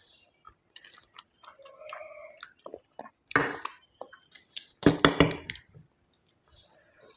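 Close-up eating sounds: wet chewing and mouth clicks from a mouthful of rice and curry. There are louder bursts of chewing about three and a half and five seconds in.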